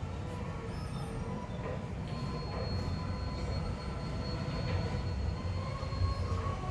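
DEA REV 220 sliding gate operator driving a heavy gate along its track: a steady low rumble of the rolling gate, with a thin high whine that comes in about two seconds in and fades near the end.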